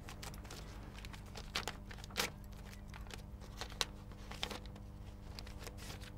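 Paper crinkling and tearing as a letter and its envelope are handled and opened, in a few short, sharp crackles over a steady low hum.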